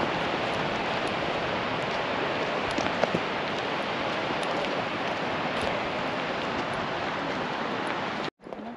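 A steady rushing noise that cuts off abruptly near the end.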